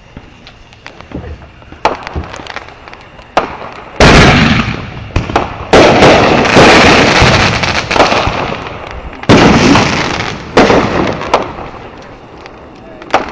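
Consumer fireworks going off: a few small pops and crackles, then from about four seconds in a run of loud booms, five or so in quick succession, each trailing off in a long fading rumble, before it dies down to scattered crackles near the end.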